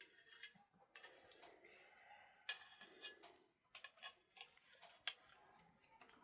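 Faint, scattered light clicks and taps over quiet background noise, with a few sharper ticks about halfway through and again near the end.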